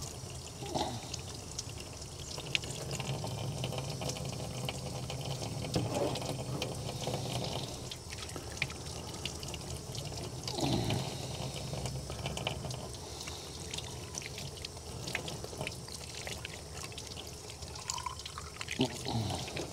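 Water from a hose running and splashing steadily over squid as it is rinsed and cleaned by hand, with many small wet clicks from the handling.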